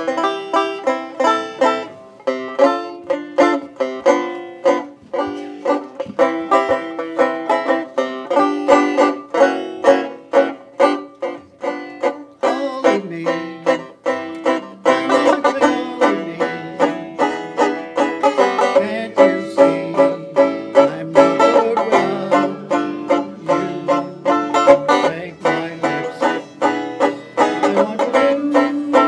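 Banjo picking a brisk tune with a steady stream of bright plucked notes, backed by the acoustic string band; lower notes join in about halfway through.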